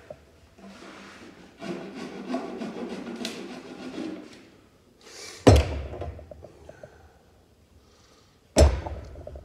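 Rubbing and handling noise on wood, then two sharp knocks about three seconds apart: glued wooden dowels being driven into the joints of a wooden Langstroth deep hive box.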